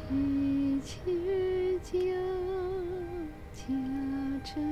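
A woman singing a Chinese lullaby in a slow melody of long held notes with a slight waver, taking short breaths between the phrases.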